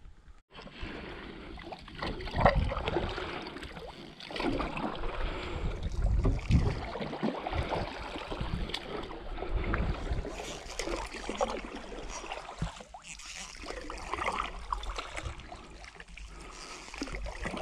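Canoe paddles dipping and pulling through calm water, with irregular splashes and a few sharp knocks of a paddle against the canoe. A low rumble of wind on the microphone runs underneath.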